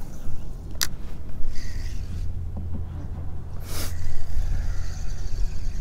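Wind rumbling steadily on the microphone, with a sharp knock about a second in and a brief rushing noise near four seconds.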